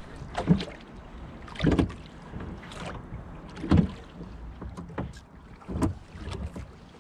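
Small wooden rowboat on a lake: irregular dull knocks and water sounds, about one every second or two, from the oars and hull as the boat moves.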